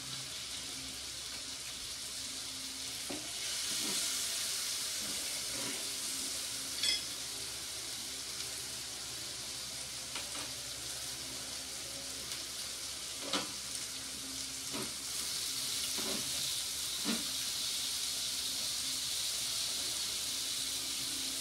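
Meat sizzling on a tabletop Korean barbecue grill pan in a steady hiss, with a few short clicks of tongs on the pan.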